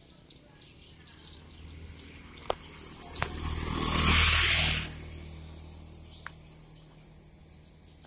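A motorbike passing close by, its engine growing louder for about three seconds and then falling away sharply about five seconds in. Faint high chirping and a few sharp ticks sound in the background.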